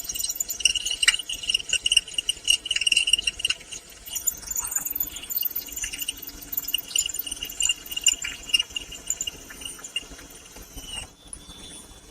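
Power drill boring through a stainless steel fairlead, a high whine that comes and goes with many small clicks and chatter from the bit, stopping near the end.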